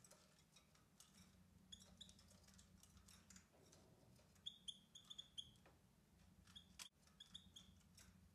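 Faint short high chirps of a European goldfinch, a quick run of them about halfway through and a few more near the end, over scattered soft clicks as it pecks at its feeder and a steady low hum.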